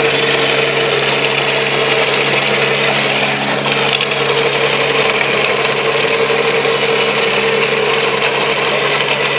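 Compact tractor's diesel engine running steadily under load, driving a rotary tiller cum ridger through the soil.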